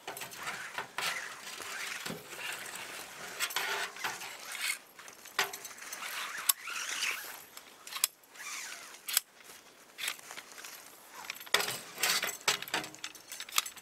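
Metal stovepipe sections of a tent wood stove's chimney being handled and slid to extend the chimney. Irregular metallic clinks and knocks with scraping and rustling between them.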